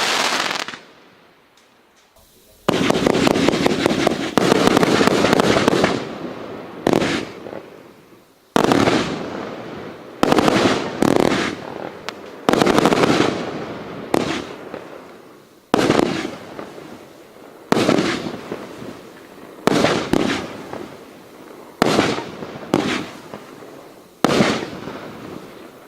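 Consumer fireworks going off in a quick series of loud bursts, roughly one every one to two seconds, each fading over a second or two. There is a short lull near the start.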